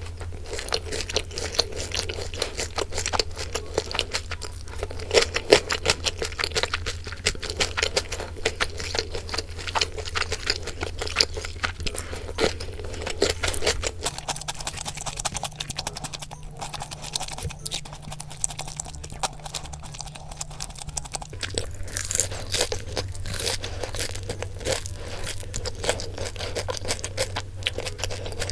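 Close-up eating sounds: crunchy food bitten and chewed in many quick irregular crackles, with soft background music underneath.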